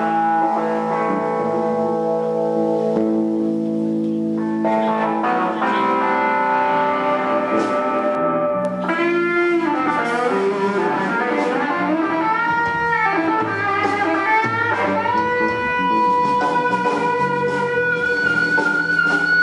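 Electric guitar played through an amplifier during a sound check. It begins with held, ringing chords, and from about halfway moves to single-note lines with notes bent up and down in pitch.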